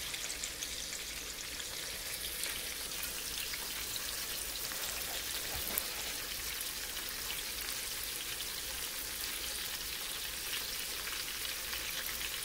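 Cornmeal-breaded catfish nuggets frying in hot oil in a cast-iron skillet: a steady sizzle, with one sharp click about halfway through.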